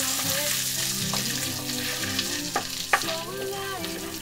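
Butter with whole spices, garlic and ginger sizzling in a pan while being stirred, with a couple of sharp taps of the utensil on the pan about three seconds in.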